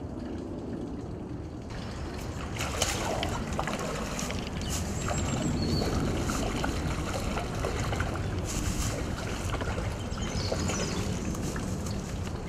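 A hooked fish splashing and thrashing at the surface of shallow water, churning it up, starting about two seconds in and growing louder midway, over a constant low rumble.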